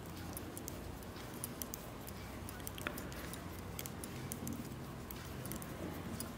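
Metal knitting needles clicking and scraping against each other as stitches are worked, a run of light, irregular ticks.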